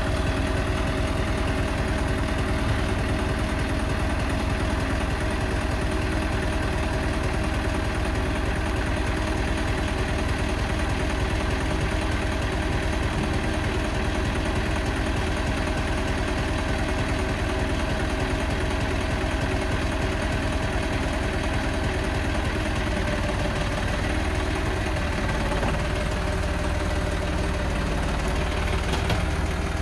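John Deere 5303 tractor's three-cylinder diesel engine running steadily at low speed. Its note shifts a few seconds before the end.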